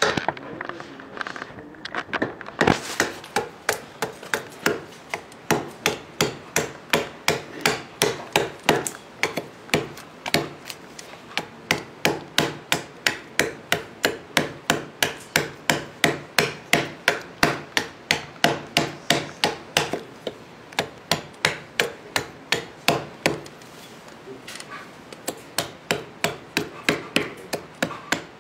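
A small hand adze chopping out the bowl of a wooden spoon, with sharp blade-into-wood strikes at about two a second and a brief pause near the end before the chopping resumes.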